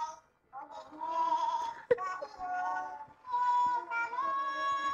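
A toddler singing: drawn-out, wavering notes in short phrases, with a sharp click about two seconds in.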